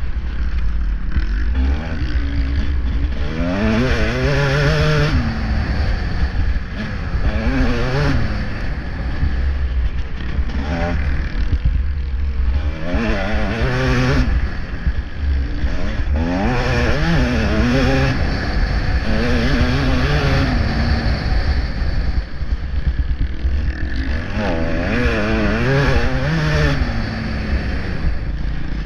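Motocross bike engine revving hard and easing off again and again, its pitch climbing through the gears on the straights and dropping as the throttle shuts for the corners.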